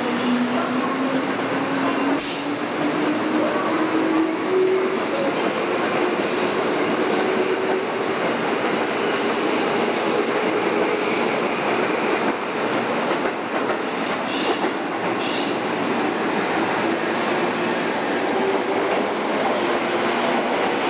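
JNR 103-series electric commuter train accelerating, its motor whine rising in pitch, over steady running noise with a few short clanks from the wheels on rail joints.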